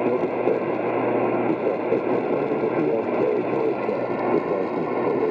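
Radio receiver audio: a steady hiss of static with faint, garbled speech underneath.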